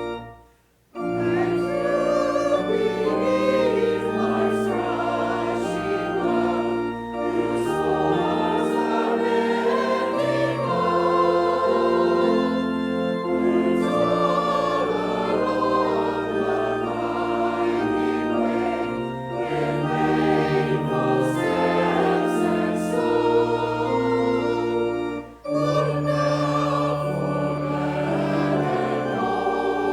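A choir singing a hymn in sustained chords over steady bass notes. There is a brief break just after the start and another short break about 25 seconds in, as between phrases.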